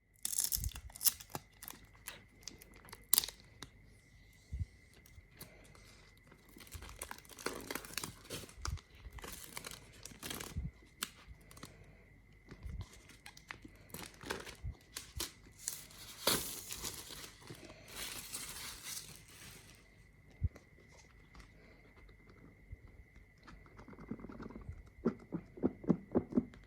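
Unboxing sounds: box packaging being torn and crinkled in several stretches, with sharp taps and clicks from handling the box.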